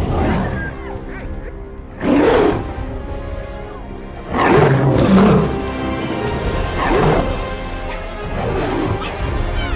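Dramatic orchestral film score with four loud roars and snarls from lions and spotted hyenas, each a second or two apart.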